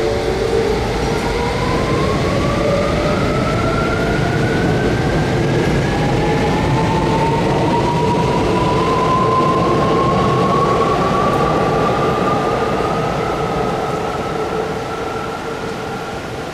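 Tokyu 3020 series train's Mitsubishi SiC-MOSFET VVVF inverter whining as the train accelerates away, with several tones climbing steadily in pitch over wheel and motor rumble. The sound fades over the last few seconds as the train draws off.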